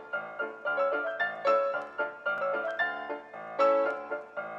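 Background piano music: a melody of single struck notes, a few a second, each fading before the next.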